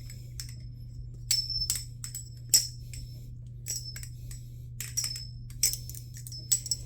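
Balisong (butterfly knife) being flipped: its handles clack shut and swing open in quick clusters of sharp metallic clicks with a brief bright ring, every second or so. A steady low hum runs underneath.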